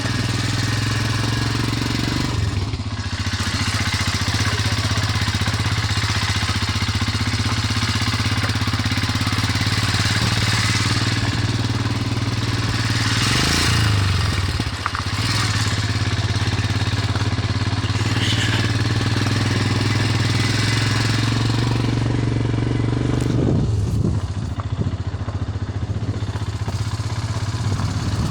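A vehicle's engine running steadily at an even, low pitch while driving a rough off-road track, with a constant rush of road and wind noise. The engine note breaks briefly about halfway through and again near the end.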